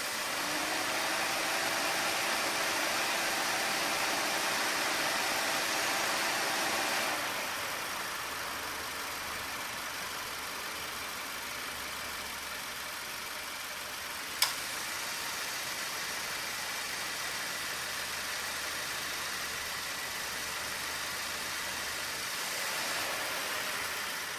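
2018 Subaru Forester idling with its air-conditioning compressor running, free of the abnormal compressor noise it had before repair. A humming tone is heard at first and stops about seven seconds in, leaving a quieter steady hum, with a single sharp click about halfway through.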